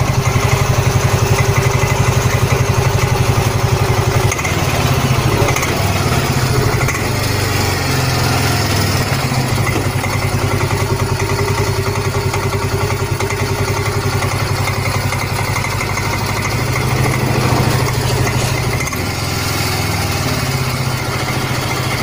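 Yamaha Mio M3 125's single-cylinder scooter engine running steadily at idle just after starting, with the rough noise from the CVT case that the owner sets out to trace.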